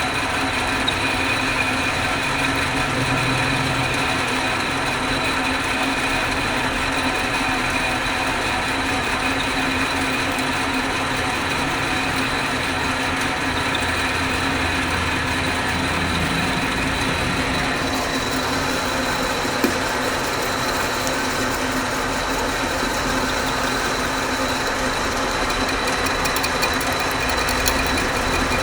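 Lathe running steadily with a constant whine and hum; about two-thirds of the way through a higher hiss comes in, and there is a single short click a little later.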